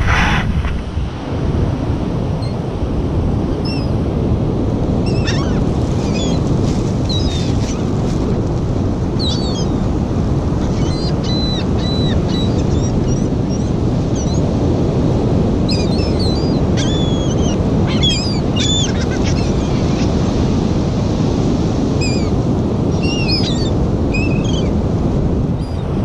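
Wind buffeting the microphone over breaking surf, with gulls flying overhead and giving short, high calls in scattered bursts.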